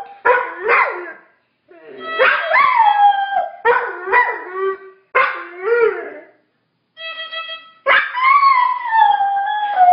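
Dog howling along to a played instrument: a series of wavering, pitched howls with short pauses between them. About seven seconds in a steady instrument note sounds, and the dog answers with one long howl that slides down in pitch.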